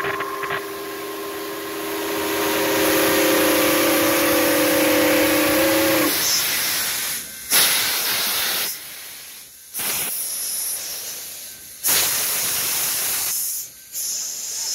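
Nickel Plate Road 765, a 2-8-4 Berkshire steam locomotive, sounding its whistle as a chord of several notes held for about six seconds, over the hiss of steam. After the whistle stops, loud uneven bursts of hissing follow as the train passes.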